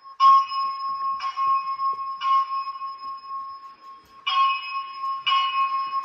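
Fire alarm notification appliances sounding the carbon monoxide signal at max volume: a steady ringing tone with a bell-like strike about once a second, three strikes, a short pause, then three more.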